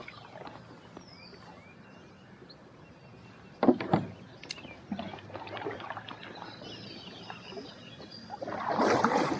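Kayak paddling on moving water: two sharp knocks of the paddle or gear against the kayak's hull a little over a third of the way in, then light clicks and water noise, swelling to a louder rush near the end.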